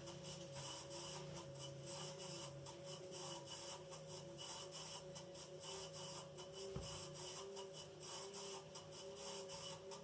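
Gorenje front-loading washing machine tumbling a wash. Its inverter drum motor makes a steady rasping grind over a faint whine, which the owner likens to a coffee grinder and expects to fail outright; it is already the machine's third motor.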